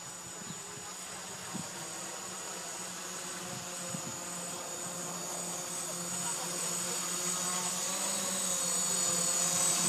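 Gaui 500 quadcopter's electric motors and propellers buzzing in flight: a steady drone with a high whine, growing steadily louder.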